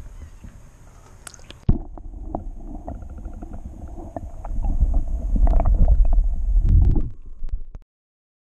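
Muffled underwater sound picked up by a submerged camera: low rumbling and sloshing of water against the housing. It starts abruptly about two seconds in, grows louder past the middle and cuts off shortly before the end. Before it comes faint shoreline ambience with a few light ticks.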